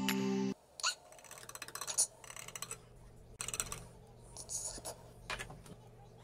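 Background music cuts off abruptly about half a second in. Then a table knife scrapes and clicks through a graham-cracker crust and against a glass pie dish, cutting a slice of no-bake lime pie.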